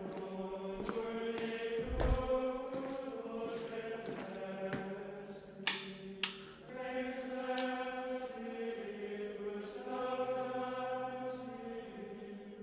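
Slow choral chant of sustained voices, holding long notes and moving step by step to new pitches. A low thump comes about two seconds in and two sharp clicks near the middle.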